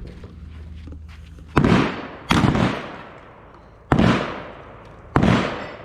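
Four gunshots, each a sharp crack followed by a fading echo, unevenly spaced over about four seconds.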